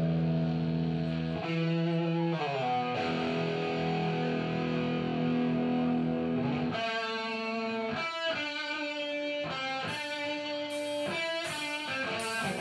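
Electric guitar played live through an amplifier: held chords that change a few times, then short, chopped chords in a rhythm, with a few sharp high taps near the end.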